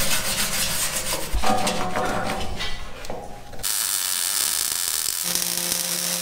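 Steel being scraped and rasped with a hand-held tool in rapid, irregular strokes, cutting off about three and a half seconds in to the steady crackling hiss of a MIG welding arc on steel plate. A steady low hum joins the welding noise near the end.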